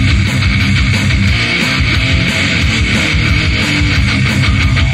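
Rock music with electric guitars played loud through an active PA speaker kit of four cabinets: dual 15-inch subwoofers and 3x12-inch tops. The bass is heavy and the top end thin.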